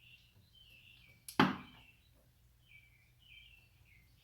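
Faint birds chirping in the background, broken by one sharp knock about a second and a half in.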